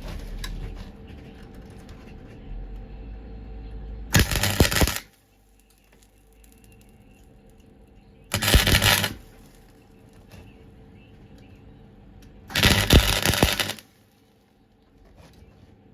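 Lincoln welder tack-welding a steel repair panel into a car floor: three short crackling welds of about a second each, roughly four seconds apart.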